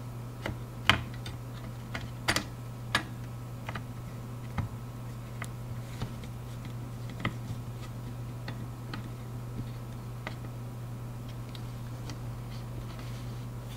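Scattered light clicks and taps of a screwdriver tip against a multimeter's circuit board and parts, irregularly spaced and most frequent in the first few seconds. A steady low hum runs underneath.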